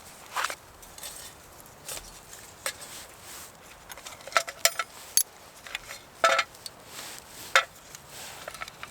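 Metal camp gear being handled: an irregular series of short clinks and knocks, some with a brief metallic ring, the loudest bunched between about four and eight seconds in.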